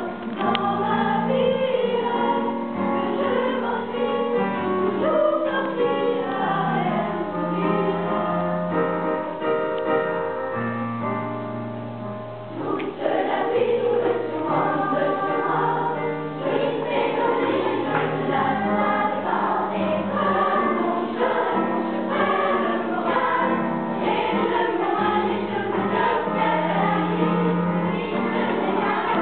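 A school choir of children and young teenagers singing a song in parts with piano accompaniment; it drops briefly softer near the middle, then comes back in full.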